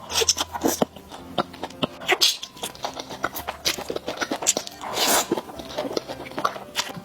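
Close-up eating sounds of sticky Northeast-style malatang: wet chewing, lip smacks and sharp mouth clicks, with a longer slurp-like burst about five seconds in.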